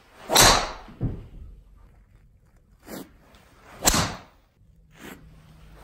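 TaylorMade M6 driver striking a golf ball twice, about three and a half seconds apart, each a sharp, snappy crack off the face. A duller thud follows the first strike about half a second later as the ball hits the hitting-bay curtain.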